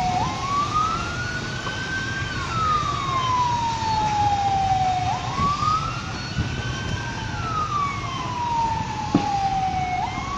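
A siren wailing in slow cycles, its pitch rising over about two seconds and falling over about three, repeating roughly every five seconds. Beneath it is a steady low rumble, and a single sharp click comes about nine seconds in.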